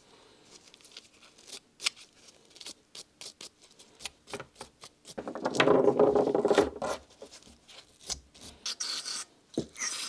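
Small brass wire brush scrubbing fouled spark plugs: quick scraping strokes and clicks, with a louder stretch of fast brushing about five seconds in. A short hiss of aerosol cleaner spray near the end.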